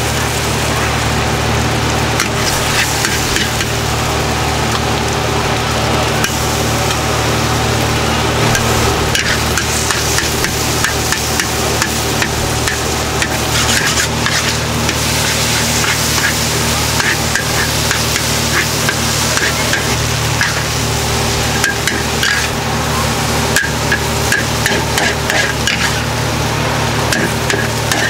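Noodles sizzling in a large iron wok while a metal spatula scrapes and knocks against the pan, over a steady low rumble. Near the end the spatula strokes come in a quick, regular run as the noodles are scooped up.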